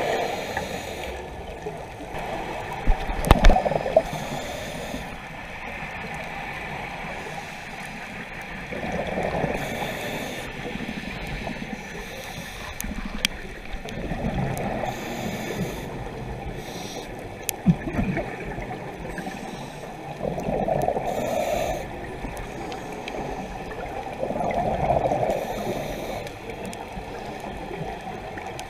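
Scuba diver breathing through a regulator underwater: bursts of exhaled bubbles gurgling every four to five seconds over a steady underwater hiss. There are a few sharp clicks, the loudest about three seconds in.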